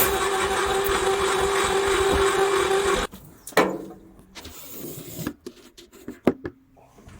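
Electric cable stripping machine running steadily with a constant hum as it pulls earth cable in and strips it. It stops abruptly about three seconds in, followed by a few scattered knocks and clicks.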